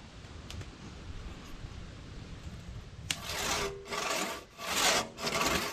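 A long crosscut saw cutting through a log in rhythmic push-pull strokes. They begin about three seconds in, after low steady background noise, and come four or five in quick succession.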